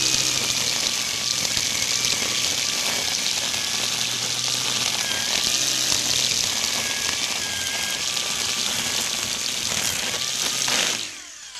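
GreenWorks corded electric string trimmer, fitted with plastic zip ties in place of trimmer line, running at full speed and slashing through tall grass. It gives a dense, steady hiss over a low motor hum, then shuts off near the end and spins down.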